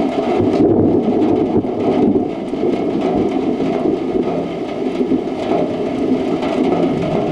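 Heavy rain falling steadily, a dense even hiss with scattered individual drop hits.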